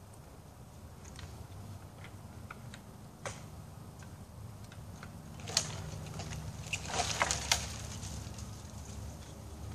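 Sharp cracks and snaps of wood and twigs, one about three seconds in, then a quick cluster over a couple of seconds, with a low steady engine hum underneath.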